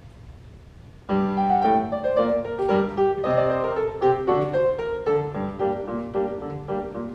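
Piano starts playing about a second in, a quick run of chords and melody notes that opens the piece.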